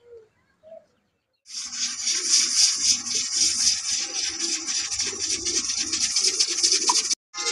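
A few faint animal calls, then from about a second and a half in a loud, steady rasping rub with a rough rhythmic scrubbing pulse, which breaks off near the end.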